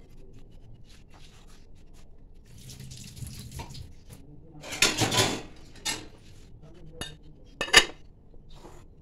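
Cut bitter gourd pieces rustling softly as they are tossed by hand in a glass bowl, then glassware clattering about halfway through, a few light knocks, and a sharp glass-on-glass clink near the end as a glass lid is set on the bowl.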